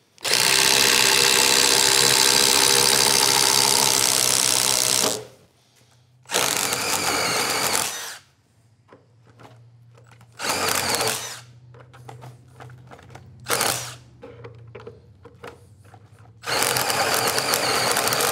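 Milwaukee M18 FUEL Gen 3 impact driver boring a large spade bit into wood under heavy load, in five bursts: one long run of about five seconds, then shorter runs.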